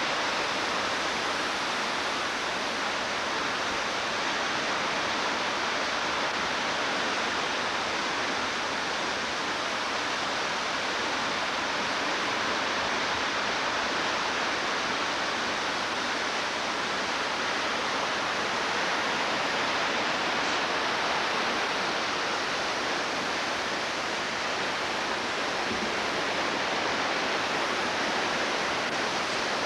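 Creek in flood, its high water rushing steadily in a dense, even wash of noise.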